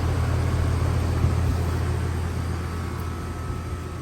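Air conditioner unit running with a steady low hum, easing off slightly toward the end.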